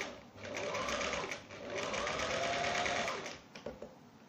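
Domestic electric sewing machine stitching in two short runs, its motor rising in pitch as it speeds up at the start of each. It stops about three seconds in, leaving only a few faint clicks.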